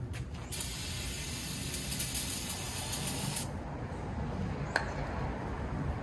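Aerosol can spraying in one steady hiss for about three seconds, starting about half a second in and cutting off sharply. A single sharp click follows near the end.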